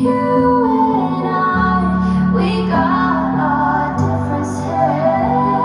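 A song: a female voice singing long, gliding notes over steady held low notes in the accompaniment.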